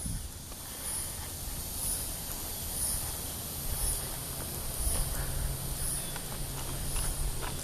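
An insect calling outdoors, a high-pitched chirp repeating evenly about once a second, over a low background rumble with a steady hum from about halfway through.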